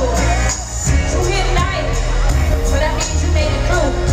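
Live band playing an R&B song, with a steady drum beat and deep bass, while a woman sings over it.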